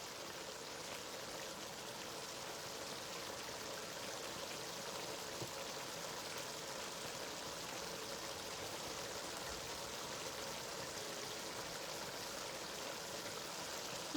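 Faint, steady sizzling hiss of a pot of spinach stew cooking in red palm oil.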